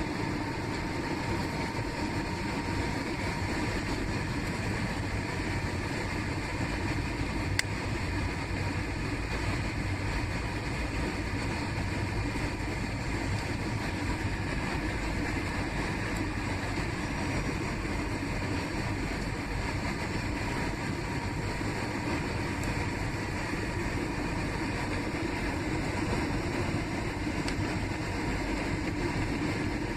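Steady roar of an airliner's engines and airflow heard from inside the passenger cabin in flight, with a faint steady tone and one brief click partway through.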